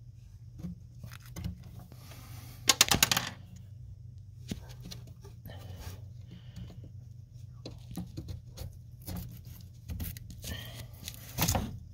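Hand tools and parts being handled under a truck's dashboard during brake pedal removal: a quick run of loud clicks about three seconds in, then scattered small clicks and knocks, with another short cluster near the end, over a low steady hum.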